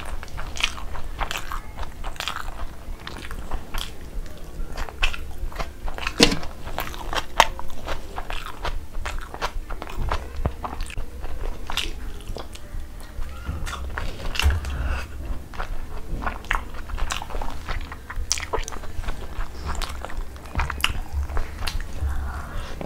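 Close-miked chewing and mouth sounds of a person eating rice and chicken curry by hand: irregular wet clicks and smacks, over a low steady rumble.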